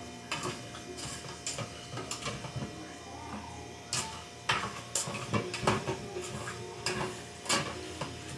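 A spoon stirring and scraping against the metal inner pot of an electric pressure cooker, giving irregular clinks and scrapes, with several sharper clinks in the second half.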